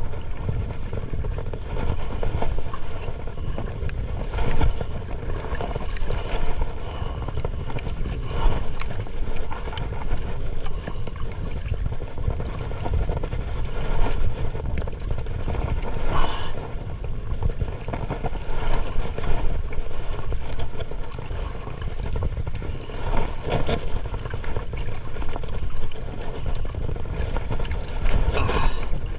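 Steady low rumble of wind and water around a small fishing boat at sea, with scattered short knocks and splashes.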